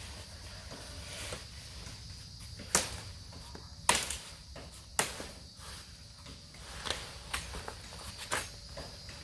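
Machete chopping fallen tree branches: three sharp strikes about a second apart, then several lighter ones. A steady high insect drone runs behind.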